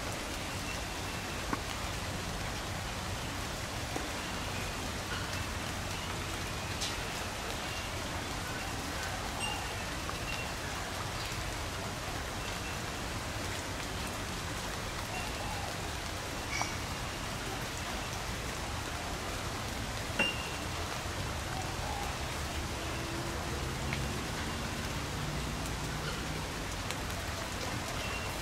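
Steady rain falling, with scattered clicks of individual drops.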